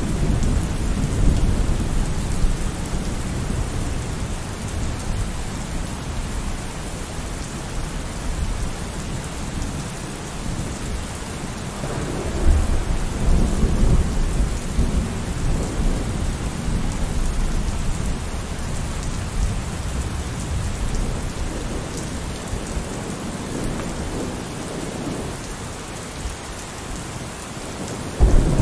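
Steady rain with low rolling thunder, the rumble swelling about twelve seconds in.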